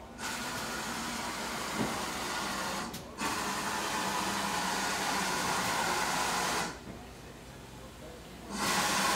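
Steam hissing from a GWR 4575 class Prairie tank locomotive, No. 5552, as it moves slowly up the platform. There are long hisses, with a short break about three seconds in, a pause near seven seconds, and the hiss comes back near the end.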